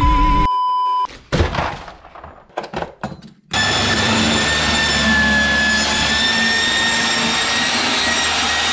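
A steady test-tone beep of about a second, then a few crackles of static. From about three and a half seconds, a cordless circular saw runs steadily with a high blade whine as it cuts into a cardboard box.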